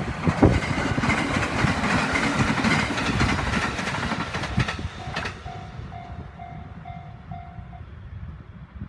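A train passing over a level crossing, with a few sharp wheel clacks over the rails. As the train fades, the crossing's warning bell is left ringing in an even repeated beat, then stops near the end.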